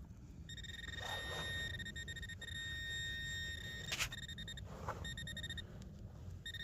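Metal detector sounding a steady high tone with a fainter overtone over buried metal in a clump of soil, held for about five seconds before cutting off. A sharp click about four seconds in.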